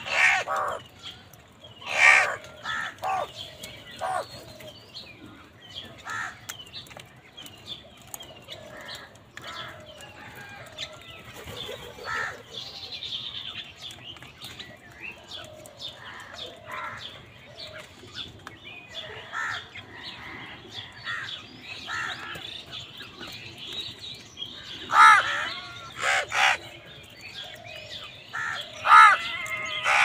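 A flock of house crows cawing as they feed together, with clusters of loud, harsh caws near the start and again near the end, and softer, shorter calls in between.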